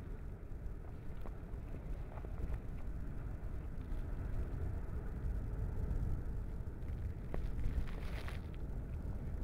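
Deep, steady rumble of the churning Marum lava lake in the crater below, with a few faint clicks.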